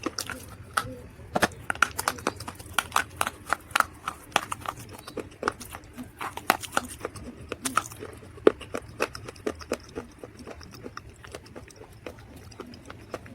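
Dried mud being crunched close up: a dense, irregular run of sharp crackling snaps.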